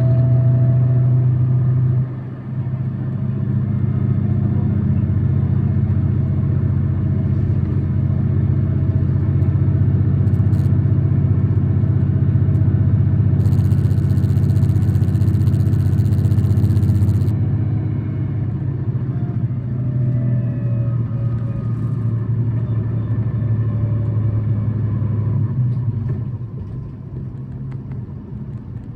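Tokyu city bus engine running under way, heard from inside the bus. The engine note drops briefly about two seconds in, then holds a steady low hum. A hiss comes in at about thirteen seconds and cuts off about four seconds later, and the sound eases near the end.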